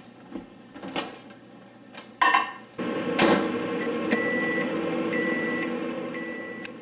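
Microwave oven: a clunk about two seconds in, then the oven starts running with a steady hum, and three long beeps about a second apart sound over it near the end.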